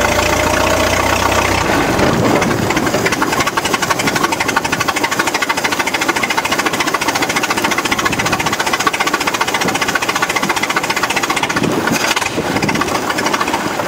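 1926 Ford Model T Speedster's four-cylinder engine running slowly, at about 400 RPM, with a rapid, even string of firing pulses, heard from the open car as it rolls along.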